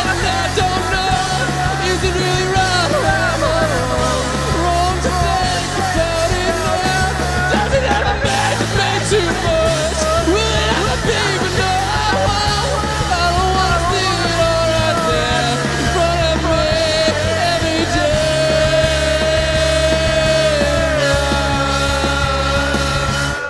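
Shoegaze rock band playing loud: distorted, wavering guitars over bass and drums, with the bass changing note about once a second.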